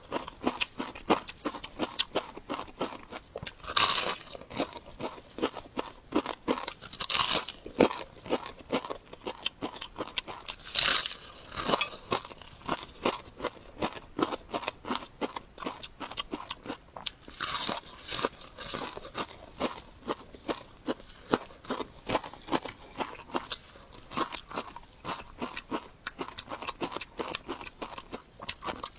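Close-up crunchy chewing of crisp food, a fast stream of small crackling crunches with a louder crunching bite every few seconds.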